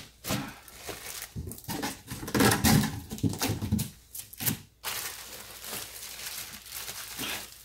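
Clear plastic bag crinkling and rustling around a large speaker as it is lifted out of a cardboard box and set down, with a few dull knocks of the box and speaker. The handling is busiest in the first five seconds and softer after.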